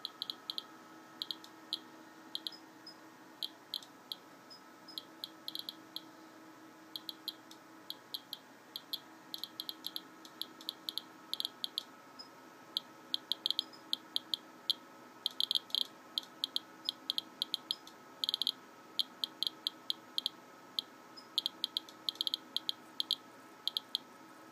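Homemade Geiger counter's piezo buzzer chirping a short high beep for each count from its LND7318 pancake Geiger–Müller tubes, at random uneven intervals that sometimes bunch together, several a second on average. A faint steady hum runs underneath.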